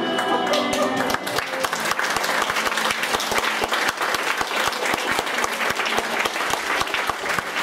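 Theatre audience applauding, with many hands clapping, as the closing music fades out about a second in.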